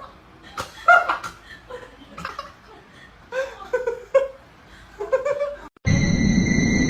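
A person laughing and giggling in short bursts. About six seconds in, the sound cuts suddenly to a loud, steady cricket chirring with constant high tones.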